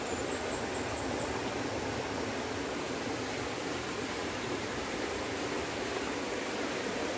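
Steady rushing of a small forest stream, with a faint row of high chirps in the first second or so.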